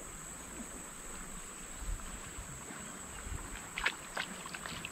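Water lapping quietly around a kayak hull, then a quick run of small splashes near the end as a bass is let go over the side into the river.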